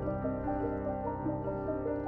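Background music: a slow melody of held notes moving stepwise over steady low sustained tones.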